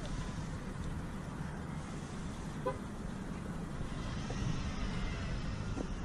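Steady low rumble of traffic with one short, pitched beep about two and a half seconds in, like a car horn toot.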